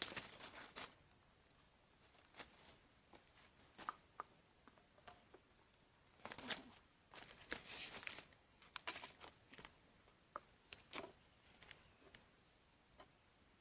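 Quiet, scattered rustling, scraping and tapping: short irregular handling noises, busiest twice in the middle.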